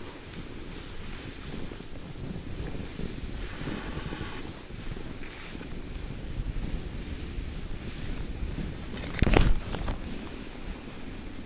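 Wind buffeting the microphone in a steady, uneven rumble, with one sudden loud thump or gust about nine seconds in.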